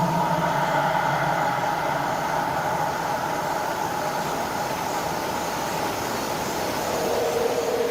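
Dark ambience sound effect: a steady, noisy rumble with slowly drifting hollow tones, like a low howling wind or distant machinery drone.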